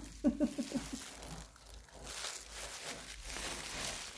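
Plastic bag crinkling and rustling as it is pressed and moved, after a few brief vocal sounds near the start.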